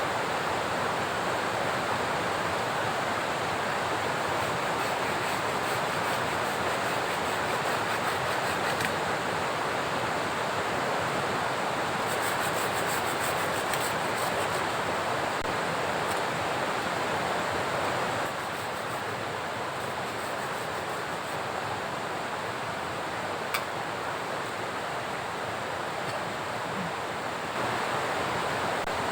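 Steady, even hiss of heavy rain and rushing water. It dips slightly in level about two thirds of the way through and comes back up near the end, with one sharp click in between.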